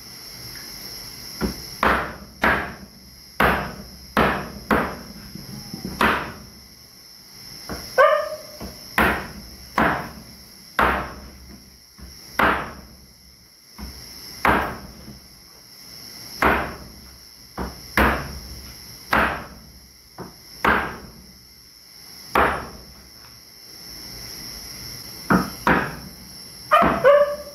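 A large heavy knife chopping raw chicken through bone onto a wooden table, about twenty sharp chops at an uneven pace, a few with a short metallic ring. Crickets trill steadily in the background.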